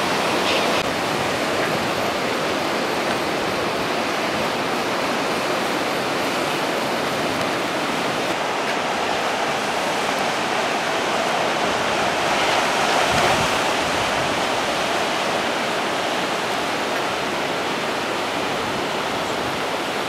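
Sea surf breaking and washing over the rocks below the cliffs: a steady rushing wash that swells briefly a little past halfway.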